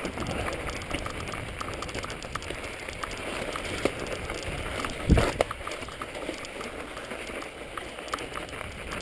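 Mountain bike riding on snow-covered singletrack: the tyres crunch through snow while the bike rattles and clicks over the rough trail, with one hard knock about five seconds in.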